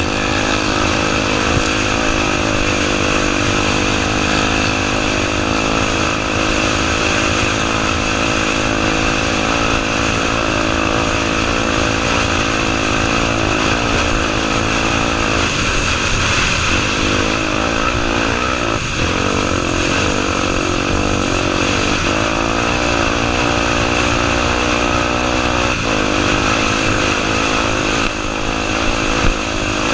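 Honda Tornado 250's single-cylinder four-stroke engine running continuously under load, its pitch rising and falling with the throttle.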